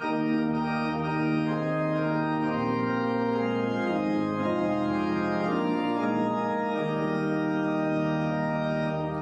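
Casavant pipe organ playing sustained, hymn-like chords on its foundation stops, the principals or diapasons, with a pedal bass line. The chords change several times and the sound stops abruptly near the end.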